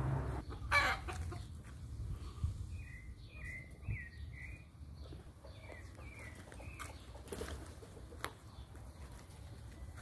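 A bird calling in a run of about eight short, high notes, each rising and falling slightly, over a low steady hum. A sharp knock sounds about a second in, with fainter knocks near the end.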